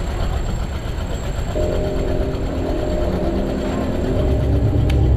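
A large vehicle's engine running close by as it passes, the low rumble growing louder toward the end, with several steady tones joining about one and a half seconds in.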